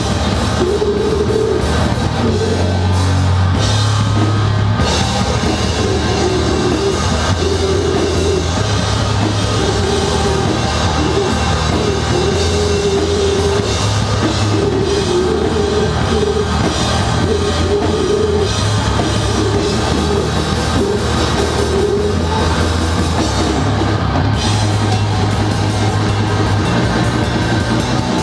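Live rock band playing loud: distorted electric guitar, bass guitar and drum kit, heard from on stage right beside the amplifiers.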